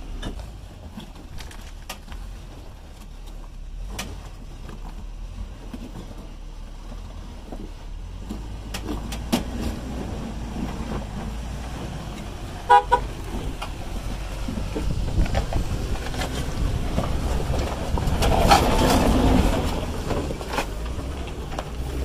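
Jeep Grand Cherokee's engine running at low speed as it crawls over rock, getting louder as it works harder near the end. About halfway through, a horn gives two short toots.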